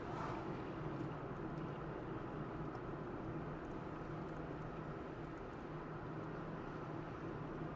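A car driving at a steady speed: even road and engine noise with a low steady hum.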